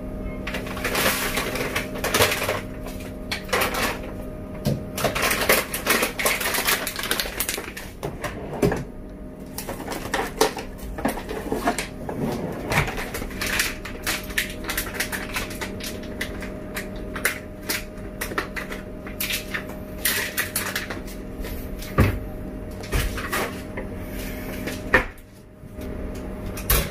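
Plastic bag of granulated sugar crinkling and rustling as sugar is poured from it into a glass jar, with irregular knocks and clinks of the jar being handled. A faint steady hum runs underneath.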